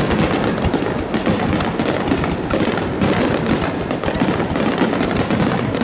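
Fireworks display: aerial shells bursting in a rapid barrage, the bangs and crackle overlapping without a break.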